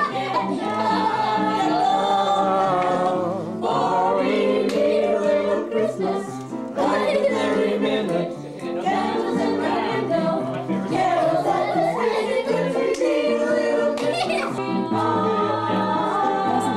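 A group of family members singing a song together, unaccompanied voices holding and changing notes in a steady, continuous line.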